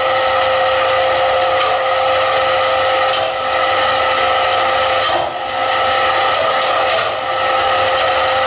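A steady machine-like hum with several held tones over a hiss, broken by a few scattered clicks or pops, played as a sound-effect section of the dance's music track; it cuts off at the end as new music comes in.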